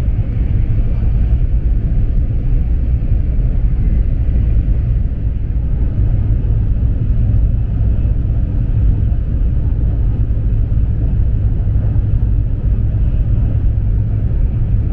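Cabin noise of a Taiwan High Speed Rail 700T train running at speed, heard from inside the passenger car: a steady low rumble.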